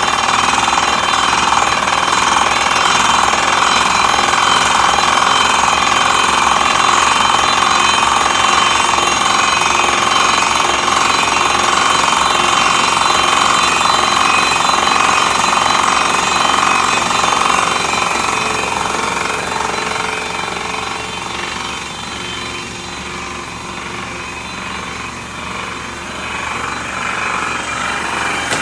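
Water-well drilling rig boring with a down-the-hole percussive air hammer: a loud, rapid, continuous hammering with the rig running. It fades somewhat about two-thirds of the way through.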